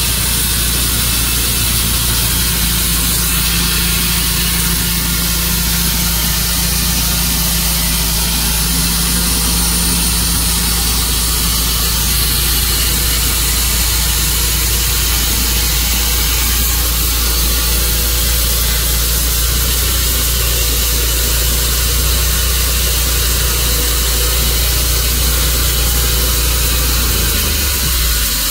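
Tru-Cut sawmill running steadily: a constant deep engine hum with a hiss of higher noise over it. The lowest part of the hum changes just before the end.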